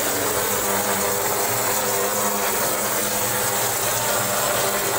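Gypsum plaster spraying rig running steadily: a constant machine hum under a dense hiss as plaster is sprayed from the hose nozzle onto the block wall.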